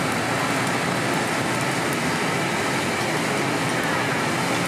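Steady sizzling of quail eggs frying in oil in a dimpled griddle pan, with faint crackles.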